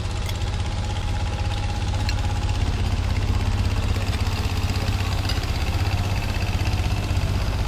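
An engine running steadily with a fast, even low pulse.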